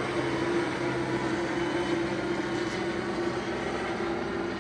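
Helicopter flying overhead, a steady drone of engine and rotor that fades slowly as it moves away.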